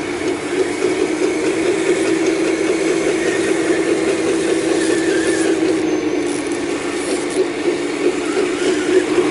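Excavator running steadily under work: a constant hum with gritty, clattering mechanical noise over it.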